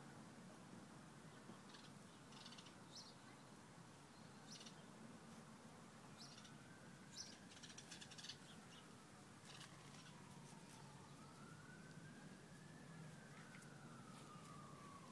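Faint quiet ambience: a distant siren wailing slowly up and down from about six seconds in, with a few short bird chirps in the first half.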